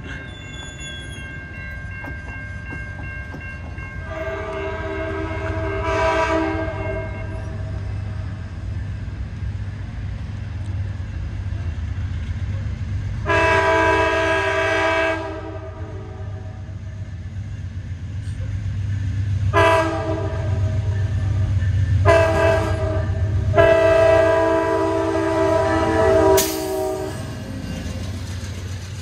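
Amtrak P42 diesel locomotive's air horn sounding a chord in the grade-crossing pattern as the train approaches: two long blasts, a short one, then two long ones, the last held until the locomotive is nearly at the crossing. Under the horn a low rumble of the approaching train grows, and near the end the locomotive and cars pass close by with wheel clatter on the rails.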